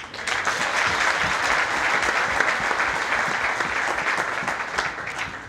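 A congregation clapping, starting at once and dying down near the end.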